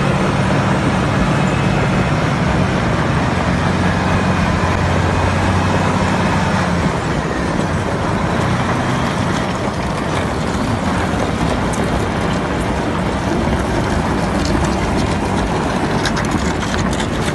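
Semi-truck's diesel engine running as the tractor-trailer moves slowly on an icy road, with a steady low engine tone that is strongest for the first several seconds and then gives way to a broader rumble. A run of short clicks comes near the end.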